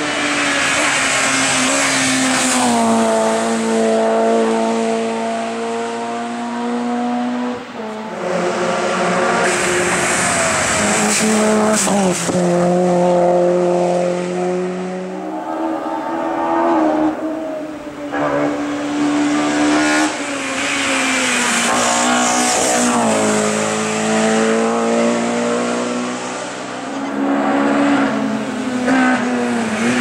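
Small Peugeot hatchback race cars driven hard through a hairpin, one after another. Their engines rev high, drop in pitch on braking and downshifts, then climb again as they accelerate away.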